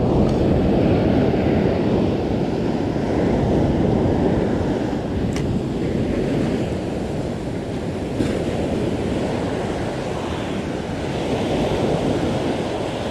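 Ocean surf breaking and washing up a sandy beach, a steady rushing wash with wind buffeting the microphone.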